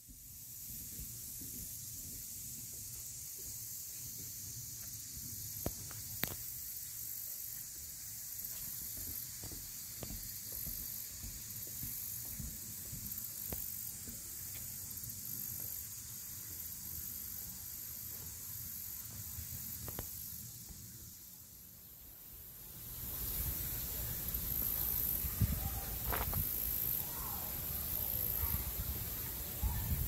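A steady high-pitched hiss with a few faint clicks, then about 23 seconds in a louder, fuller rushing sound of shallow water running over stones in the pond's outlet stream.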